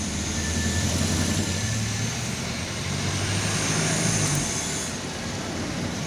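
Cuyi MK630 vinyl cutter's carriage motors humming as the cutting head is jogged into line with a registration mark. The hum steps up in pitch a couple of times and stops about four seconds in.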